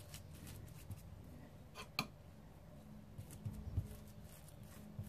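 Faint handling sounds of hands pressing and spreading soft minced chicken filling over minced meat on plastic wrap. There is one sharp click about two seconds in and a few soft low knocks later, and a faint hum joins about three seconds in.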